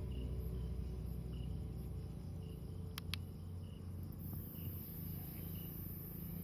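Crickets chirping at night in a regular pulse, about two chirps a second, over a low steady hum. Two sharp clicks come about three seconds in.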